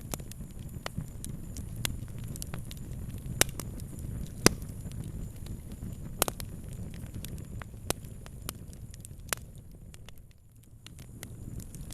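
Fire crackling: sharp pops at irregular intervals over a low, steady rumble, the loudest pops a little after three and four seconds in and again just past six. The rumble briefly drops away near the end.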